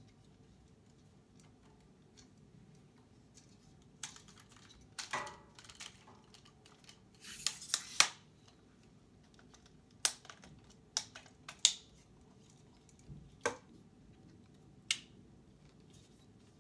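Gex multi-function tripod being handled and adjusted: an irregular run of sharp plastic and metal clicks and knocks from its leg sections, locks and grips, starting about four seconds in.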